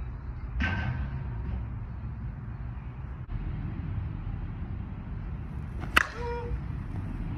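Softball bat hitting a pitched softball about six seconds in: one sharp crack with a short ring after it. A fainter knock with a ring comes about half a second in, over a steady low wind rumble.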